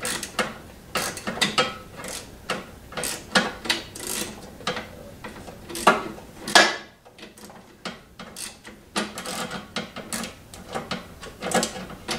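Socket ratchet clicking in quick, irregular strokes as a Torx-head bolt on the snowblower's electric starter motor is loosened through a universal joint. The clicking pauses briefly a little past halfway, then resumes.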